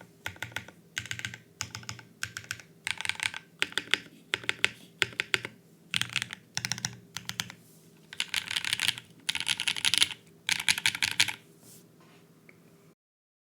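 Typing on a custom mechanical keyboard: lubed and filmed Raeds switches on an FR4 plate, with GMK keycaps. Keystrokes come in quick bursts with short pauses between them, and the typing stops near the end.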